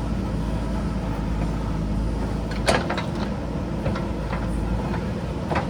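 JCB backhoe loader's diesel engine running steadily while it digs, with three sharp knocks from the working bucket and arm, the loudest about halfway through.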